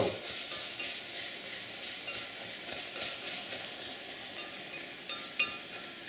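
Hot oil-and-flour roux sizzling as the moisture in freshly added chopped onion, celery and bell pepper hits it, while the mixture is stirred in a glass bowl. The sizzle fades slowly, and there are a few light clicks near the end.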